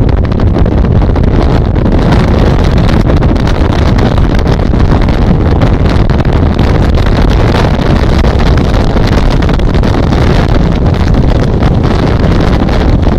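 Speedboat running at speed over choppy water: engine, water rushing along the hull and wind buffeting the microphone blend into one loud, steady noise.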